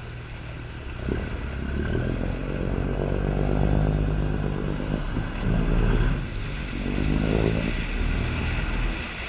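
Boat engine running steadily, louder from about a second in.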